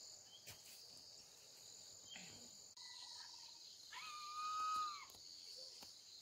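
Steady high insect chorus over the fields, joined near the middle by a clear whistle-like call held for about a second that drops away at its end; the background changes abruptly about halfway through, with a few faint ticks.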